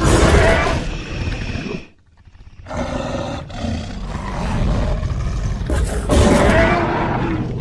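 Dragon roar sound effects: a loud roar, a short break near two seconds, a pitched, more tonal growling call, then another loud roar near the end.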